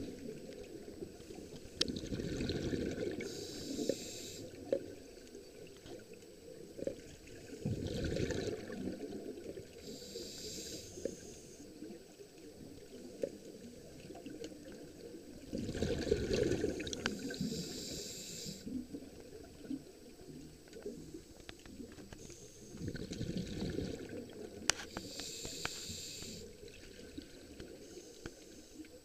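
Scuba diver breathing through a regulator underwater: about four slow breaths, each a burst of exhaled bubbles with the hiss of the regulator.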